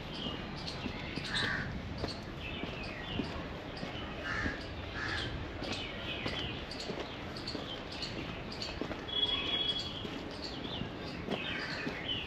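Crows cawing every few seconds, with smaller birds chirping in between and one brief high whistle about nine seconds in.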